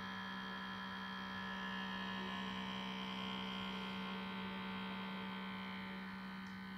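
Laptop running with a steady mechanical hum and a fainter high whine, a little louder in the middle. This is the strange 'motor noise' that the owner puts down to a computer that has not been maintained.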